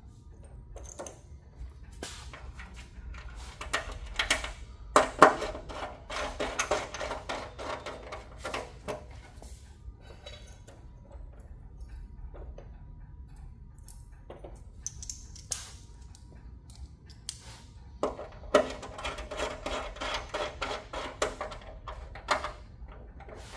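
Hand-tool work on the plastic bed of a GE Panda infant warmer: small metal fasteners clattering in a plastic parts tray and scattered clicks and knocks. Two longer stretches of rapid clicking, about five seconds in and again near the end, as a small ratchet drives fasteners into the underside of the bed.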